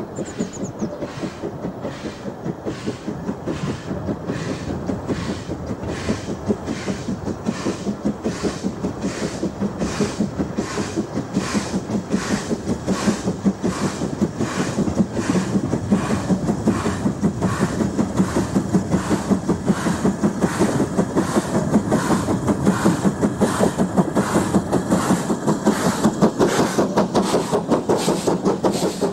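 LMS Ivatt Class 2 2-6-0 steam locomotive working hard with a train, its exhaust beating in a steady, even rhythm that grows louder as it approaches and passes close by.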